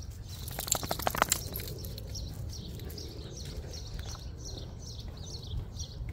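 A songbird repeating a short, falling chirp about twice a second through the second half, over a low steady background rumble. About a second in there is a brief burst of sharp clicks, the loudest sound.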